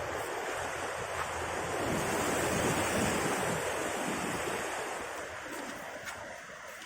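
Rushing floodwater, a steady roar of water, with wind buffeting the microphone; it swells about midway and eases off near the end.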